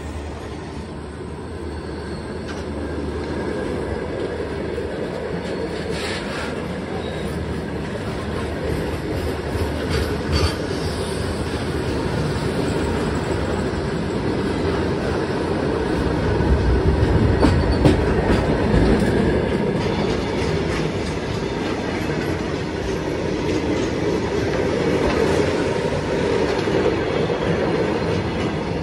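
Goods train of loaded open-top freight wagons rolling past close by: steel wheels clattering over the rail joints in a continuous rumble, with a sharp clank now and then, loudest a little past halfway.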